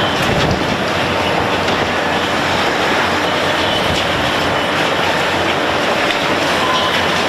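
Heavy machinery working: a steady, dense mechanical noise with no pauses.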